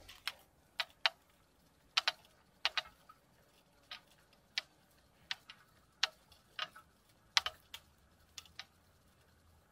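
A spinning reel handled in the hand, making a string of light, sharp clicks at irregular intervals, often in pairs, about two a second.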